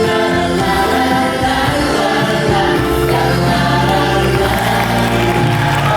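A group of voices sings a song together with live band accompaniment, a cast-and-audience sing-along, drawing out long held notes.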